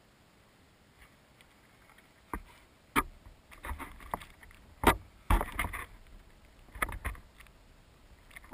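Footsteps approaching through grass, heard by a camera lying on the ground: a few irregular heavy thumps with rustling between them, starting about two seconds in.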